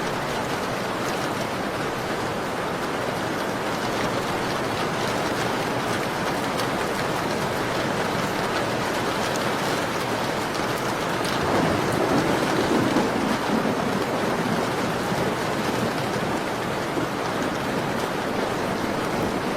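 Steady rain pattering on a window, with scattered small ticks throughout. About two-thirds of the way through it briefly swells and grows fuller, then settles back.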